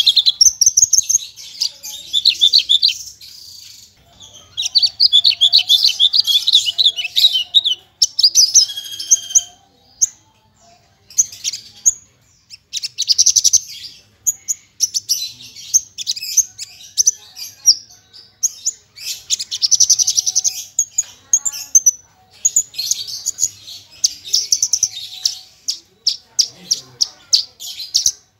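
Javan bush lark (branjangan) of the parva type singing a fast, varied song: phrases of rapid, stuttering trills and high chirps in quick succession, broken by short pauses, the song full of fill-in phrases copied from other birds.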